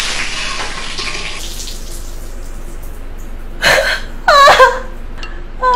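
Champagne fizzing and gushing out of a just-opened bottle, a hissing spray that fades away over the first second or so. A woman laughs in short high bursts about four seconds in, and again near the end.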